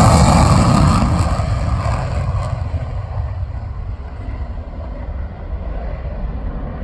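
Aircraft flying past at an airshow. Its loud noise fades away over the first two to three seconds, leaving a steady low rumble.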